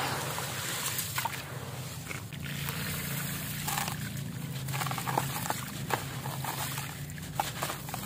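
Hands sloshing in a basin of water and lifting out a soaked concrete cake, water trickling and pouring off it, with scattered small crackles and knocks as wet grit crumbles away.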